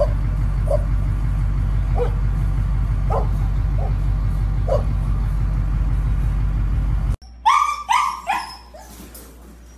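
A dog barks sharply about six times at a distance over a steady low rumble. After a sudden cut, a husky puppy gives three quick, loud, high yelps, each falling in pitch.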